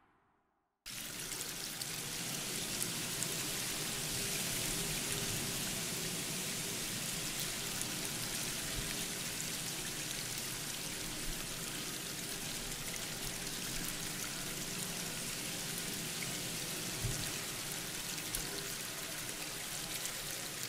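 Steady, even rush of splashing water, starting abruptly about a second in.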